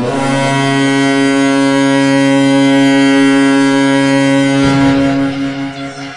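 NHL arena goal horn: one loud, steady blast that starts abruptly and fades out after about four and a half seconds.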